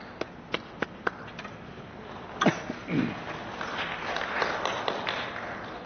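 Footsteps on a hard floor, four or five quick steps in the first second, then two short scraping sounds about two and a half seconds in. Light rustling and tapping follow.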